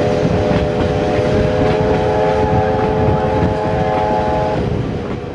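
Steam locomotive No. 1647's multi-note whistle blowing one long chord over the loud rumble of the passing train. The whistle cuts off near the end.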